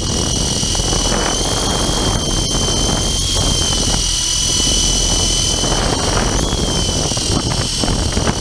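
Radio-controlled helicopter in flight: its motor and rotor make a steady high-pitched whine that wavers slightly in pitch, over a constant low rumbling noise.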